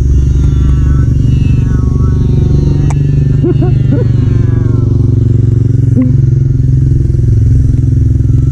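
Steady wind rumble on the microphone, with the wavering whine of the toy RC jet's small brushed electric motor and propeller flying overhead.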